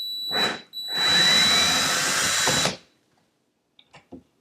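Power drill backing out a cabinet hinge screw: a short burst, then a run of about two seconds with a high whine whose pitch rises as it goes, ending with a couple of light clicks.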